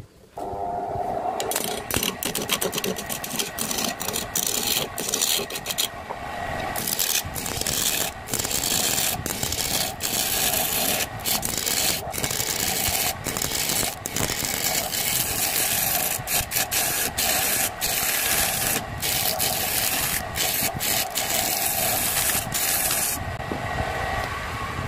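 Homemade wood lathe starting up and running with a steady hum, while a turning chisel cuts into the spinning wood blank with a rough scraping broken by many sharp ticks as the blank is roughed round. The cutting stops about a second before the end, leaving the lathe running.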